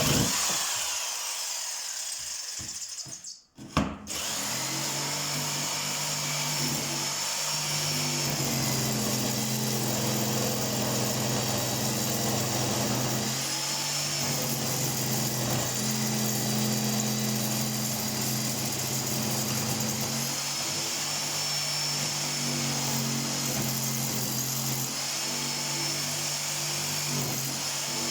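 Electric drill running: a short burst, a brief stop about three and a half seconds in, then a long continuous run whose pitch shifts up and down as the load on the bit changes.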